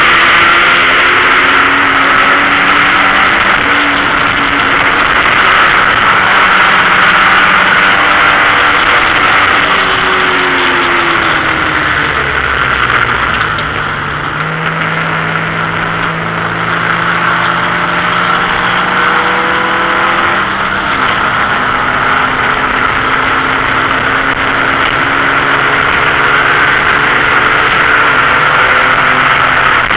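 A BMW 528e's 2.7-litre straight-six engine is heard from inside the bare race-car cabin under loud wind and road noise. The revs rise and fall with throttle and gear changes, and the engine eases off briefly around the middle as the car slows into a corner.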